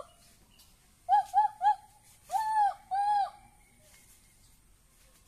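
An animal's calls: three short, quick pitched calls a little after a second in, then two longer arched calls, each rising and falling slightly in pitch.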